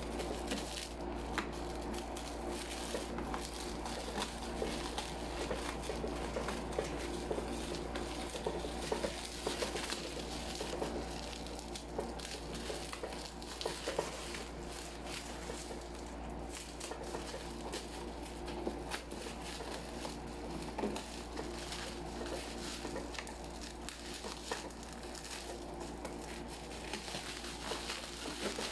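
Packaging of a cordless drill being opened and handled by hand: crinkling and rustling with scattered small clicks and knocks.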